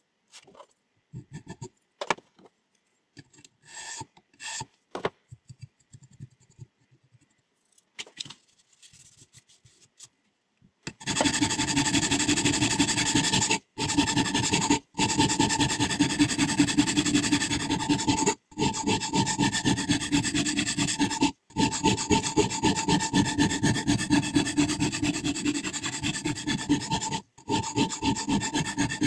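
A sharpening stone scraping along a steel scissor blade. First come a few scattered scrapes and clicks. About a third of the way in it turns into continuous rapid rasping strokes, broken by a few brief pauses.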